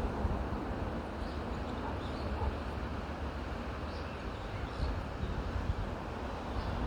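Steady wind blowing through forest trees, a continuous low rushing noise. Faint short high bird chirps come through it in pairs about every two to three seconds.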